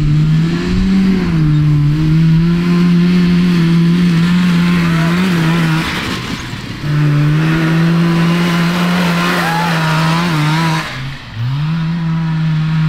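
Kawasaki 440cc two-stroke snowmobile engine in a go-kart, running at a steady high-revving note under throttle as the kart drives over snow. Twice the note drops away briefly, about six seconds in and again near eleven seconds, and the second time it rises back up as the engine revs again.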